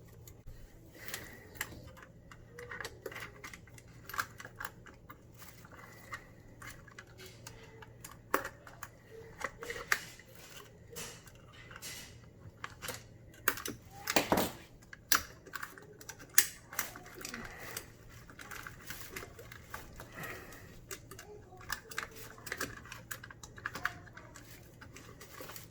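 Irregular small clicks, taps and rattles of hands and a tool working at the wiring of an old garbage disposal, as its ground wire and wire connections are undone, over a faint steady low hum.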